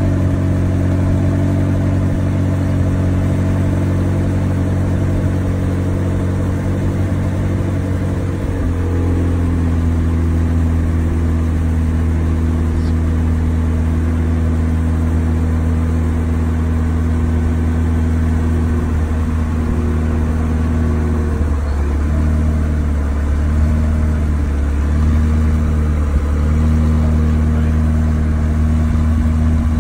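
McLaren 720S twin-turbo V8 idling at the exhausts. About eight seconds in, the idle steps down to a lower, steady pitch.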